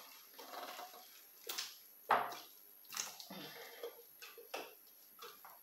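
Pork ribs in sauce being scraped out of a Thermomix's stainless steel mixing bowl with its spatula and dropping into a serving dish: a handful of short knocks and wet plops, the loudest about two seconds in.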